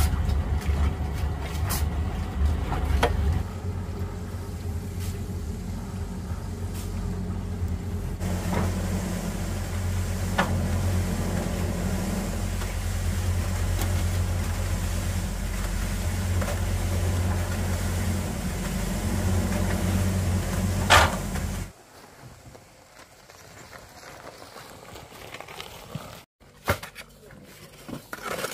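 An engine running with a steady low hum and a few knocks on top, cutting off suddenly about three-quarters of the way through and leaving a much quieter background.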